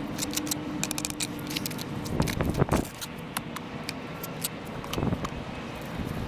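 Hand-packing quick-setting hydraulic cement into culvert pipe joints: scattered clicks and scrapes, with louder scuffing handling noise about two seconds in and again near five seconds.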